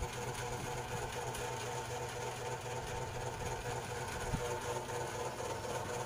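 A steady, low mechanical hum with a faint hiss behind it.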